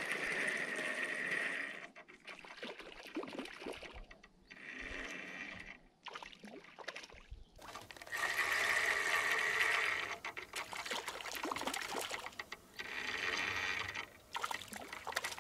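Water trickling and splashing in repeated bursts of a second or two, with short pauses between them.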